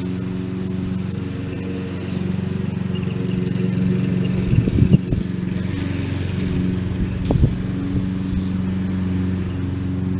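Lawn mower engine running at a steady speed while mowing, with brief louder low thumps about halfway through and again a couple of seconds later.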